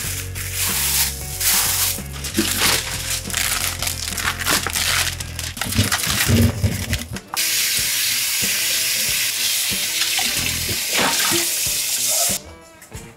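Irregular rustling and knocks, then strawberries tumbling out of a box into a metal mesh strainer about six seconds in. A kitchen tap then runs steadily onto them in a stainless steel sink and shuts off suddenly near the end.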